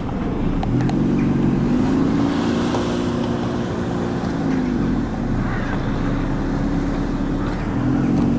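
Car engine running steadily while driving, with a low hum that shifts slightly in pitch, over road and wind noise.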